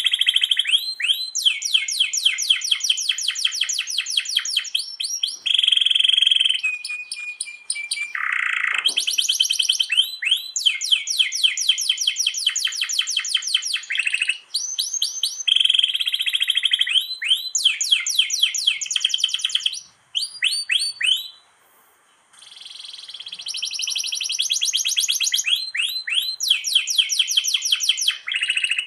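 Domestic canary singing a long, continuous song of fast rolling trills: runs of rapidly repeated notes, one roll straight after another, with a brief pause about twenty seconds in.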